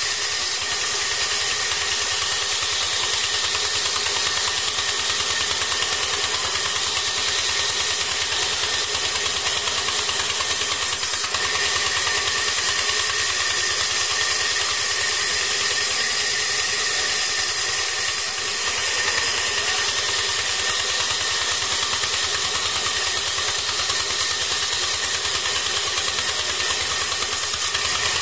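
Large vertical band sawmill running steadily: a loud, even mechanical drone with a strong high hiss, unchanging throughout.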